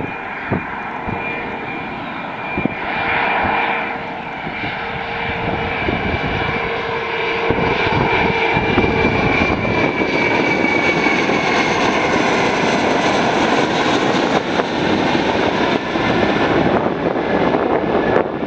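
Fokker 100 airliner on final approach passing overhead: the whine and rush of its Rolls-Royce Tay turbofan engines. A steady high tone sinks slightly in pitch as it passes, and the rush grows louder about halfway through.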